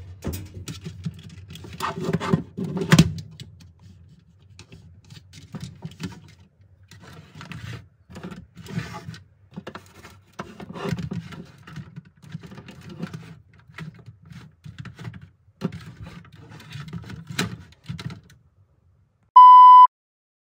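Irregular knocks, clicks and scrapes of objects being handled, over a low hum, with the loudest knocks about two to three seconds in. Near the end comes a short, loud, steady electronic beep of about half a second.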